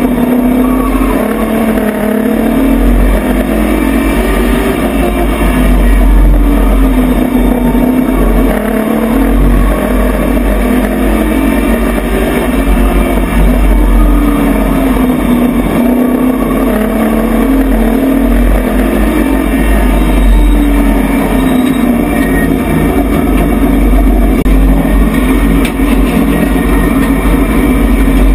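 Race truck's engine at racing speed, heard from inside the cab, loud throughout. Its pitch rises and falls every few seconds as the driver gets on and off the throttle, over a heavy low rumble.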